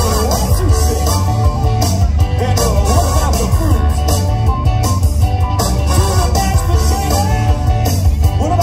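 Loud rock-and-roll music played through an outdoor stage PA system, with a steady beat, heavy bass and a gliding melody line over it.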